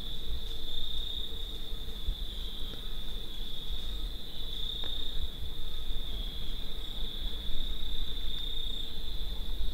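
Crickets trilling in a steady, continuous high-pitched chorus, over a low rumble.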